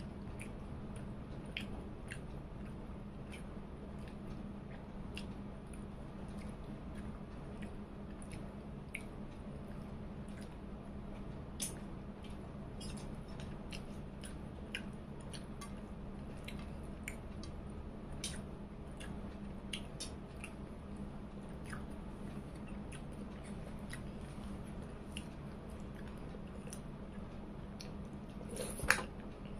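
Close-up eating sounds of a person eating rice and chicken curry by hand: soft chewing, squishing and small wet mouth clicks scattered through, with a sharper, louder smack near the end. A steady low hum runs underneath.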